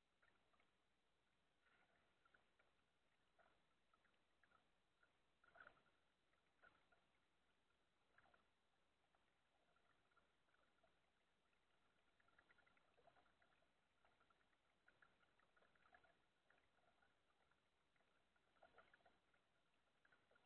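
Near silence, with faint scattered ticks and a faint, broken high squeak that comes and goes.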